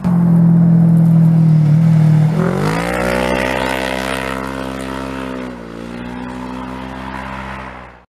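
Rally-raid car's engine running hard at steady revs, then revving up about two and a half seconds in and holding high revs, with a brief dip in revs a few seconds later. It cuts off suddenly at the end.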